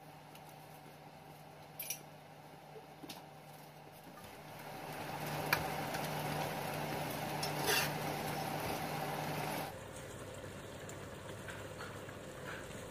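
Steel spatula stirring and scraping in a wok of simmering fish stew, with a few sharp metal clinks. The stirring noise starts about four seconds in and cuts off suddenly near ten seconds.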